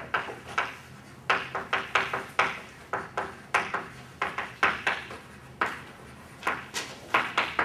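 Chalk writing on a blackboard: a run of sharp taps and short scrapes as capital letters are printed, coming in quick irregular clusters of a few strokes with brief gaps between.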